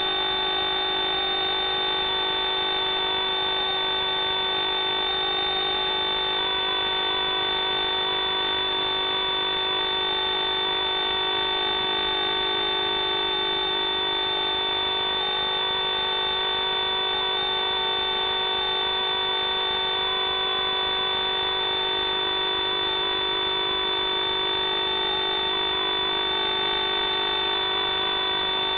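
FPV drone's electric motors and propellers whining steadily, the main pitch wavering slightly up and down with throttle, over a set of fixed electrical tones.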